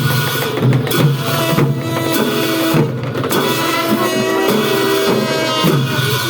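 Traditional Newar dance music: drums beating a steady rhythm, with held pitched tones sounding over them.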